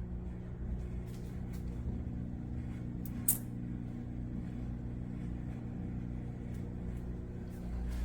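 Steady low mechanical hum, with a single brief sharp click about three seconds in.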